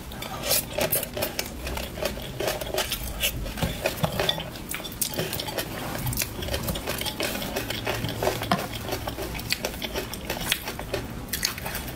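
Spatula scraping and tapping on a plate in many short clicks and scrapes, mixed with close-miked wet mouth sounds as sauce is licked off the spatula.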